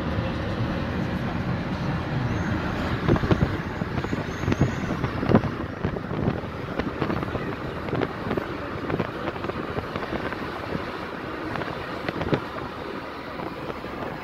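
Road and engine noise inside a moving car, with scattered knocks and thumps, loudest between about three and six seconds in.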